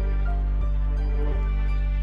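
Soft, slow background music with sustained notes over a steady low bass.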